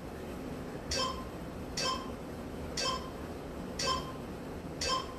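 Interval timer app giving five short chiming beeps, one a second: the countdown to the end of a Tabata work interval.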